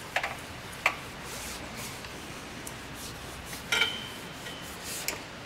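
Quiet rubbing and light metal clinks as a Fox shock absorber is wiped down with a rag and handled. There are four small clinks, and the one near the four-second mark rings briefly.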